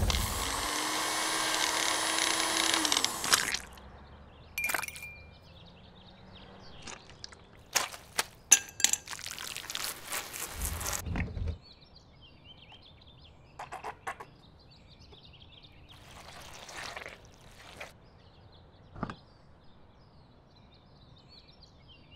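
Electric hand mixer running in a steel bowl for about three and a half seconds, its motor pitch rising as it spins up. After it come scattered clinks and knocks of kitchenware and a short pouring sound.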